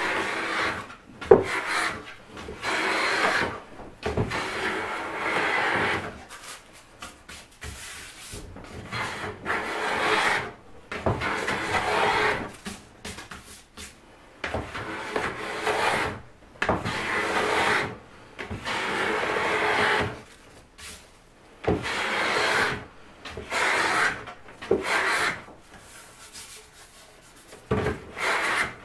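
Japanese hand plane with a first-generation Kanai blade shaving a spruce soundboard: repeated cutting strokes, each about one to two seconds long with short pauses between them, as long thin shavings peel off the wood.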